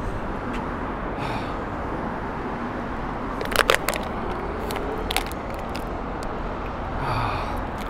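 Steady city traffic noise, with a few sharp plastic crackles and clicks from a plastic drinks bottle being handled, about three and a half seconds in and again about five seconds in.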